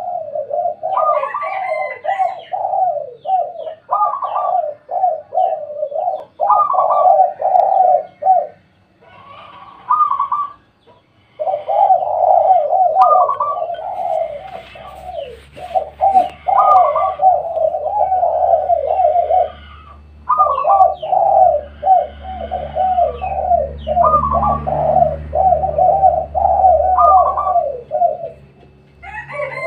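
Several spotted doves cooing in quick repeated phrases, their calls overlapping, with a short lull about a third of the way in. A low hum sits underneath through the second half.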